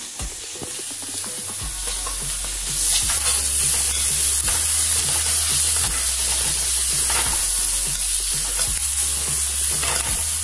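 Chopped onion, garlic, green chilli and tomato sizzling in hot oil while being stirred in a steel kadai, with the spatula scraping the pan. The sizzle grows louder over the first few seconds, then holds steady.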